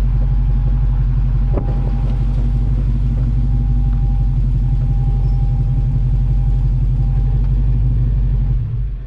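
LS1-swapped 1967 Chevelle's 5.7-litre V8 exhaust idling steadily, heard from behind the tailpipes, with one sharp click about a second and a half in. The sound fades out near the end.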